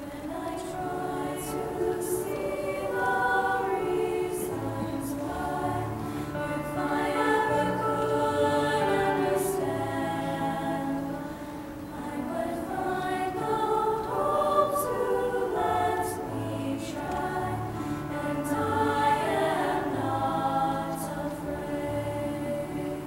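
Female choir singing in several-part harmony, coming in right at the start and swelling and easing over the phrases.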